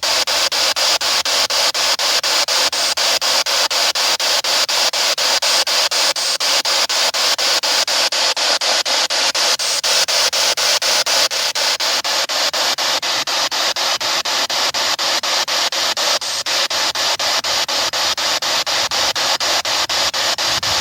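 Spirit box sweeping through radio frequencies: a continuous hiss of static chopped into rapid, evenly spaced pulses.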